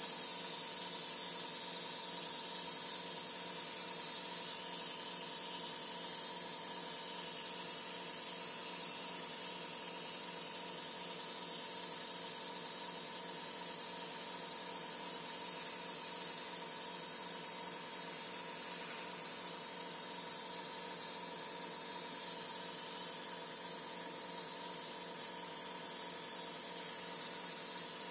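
Gravity-feed airbrush spraying paint: a steady hiss of air and paint that holds level throughout, with a faint steady hum underneath.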